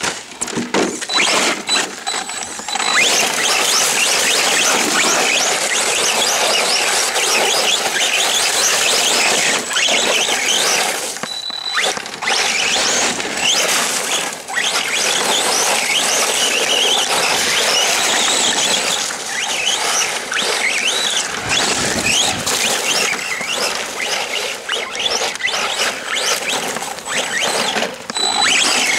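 Arrma Senton 3s BLX RC truck's brushless motor and drivetrain whining, many short rises and falls in pitch as the throttle is worked, with tyre noise over mud and stones. It fills in fully about three seconds in.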